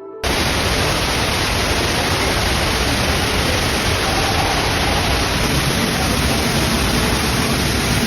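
Heavy rain pouring down, a loud, dense, steady hiss that cuts in suddenly about a quarter second in.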